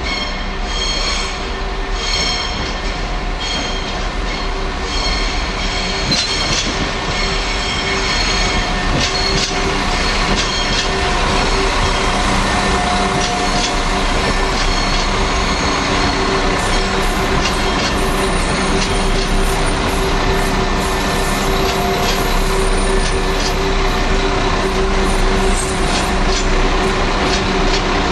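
Chiltern Railways Class 172 diesel multiple unit running slowly past on curving track into the terminus. Its wheels squeal with high-pitched tones that come and go over the steady drone of its diesel engines, growing louder as the train draws level.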